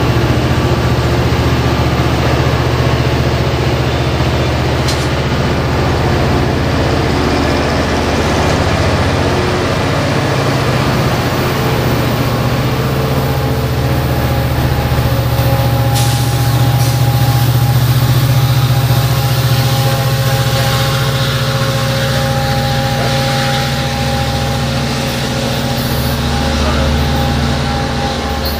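Coaster commuter train pulling out and passing, its F59PHI diesel-electric locomotive (EMD 12-cylinder 710 engine) running under power with a steady low drone. Steady higher tones join it about halfway through, as the locomotive goes by.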